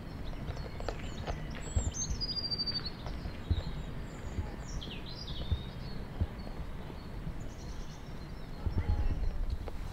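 Small birds chirping over a steady low background rumble: a cluster of short high chirps and a high call sliding downward about two seconds in, then a few more chirps around five seconds.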